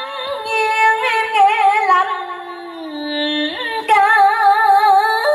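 A woman singing vọng cổ into a microphone, long drawn-out notes with a heavy, wavering vibrato. About halfway the voice sinks to a low held note, then leaps back up.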